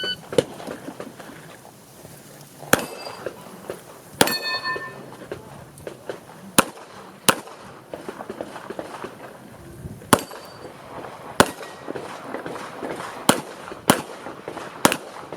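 Handgun shots fired at uneven intervals, about ten in all, during an IPSC practical shooting course of fire. A brief metallic ring follows two of the shots.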